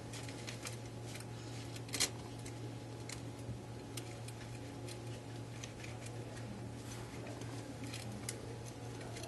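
Faint, scattered clicks and ticks of fingers handling a clear plastic fiber-optic splice cassette and tucking fiber tails into it, with one sharper click about two seconds in. A steady low hum runs underneath.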